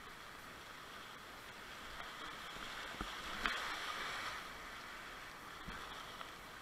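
Whitewater rapids rushing around a kayak as it is paddled downriver. The rush swells toward the middle, with a sharp knock about three and a half seconds in.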